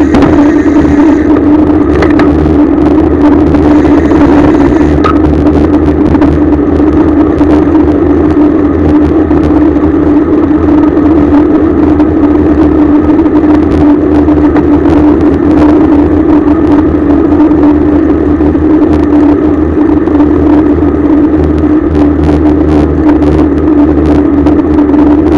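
Riding noise picked up by a camera mounted on a moving road bicycle: a loud, steady rush with a constant hum and a low rumble underneath.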